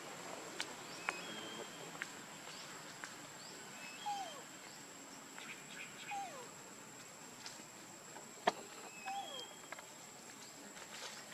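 Young macaque's faint short squeaking calls, each sliding down in pitch, three of them spaced a few seconds apart, with thin high chirps and scattered small clicks over a faint outdoor background.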